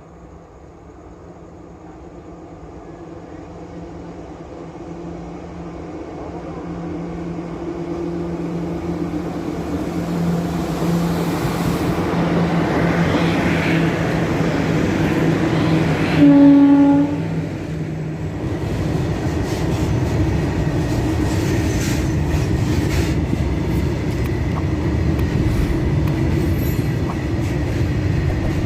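Indian Railways WAG-7 electric locomotive approaching with a steady hum that grows steadily louder, then one short horn blast about sixteen seconds in, the loudest sound. After that the train rolls past with a continuous rumble of wheels on rail.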